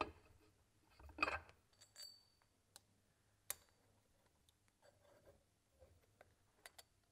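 Near silence broken by a few faint metallic clicks and clinks, sharpest about three and a half seconds in, from a hex key working bolts on a cast-iron gear-pump housing.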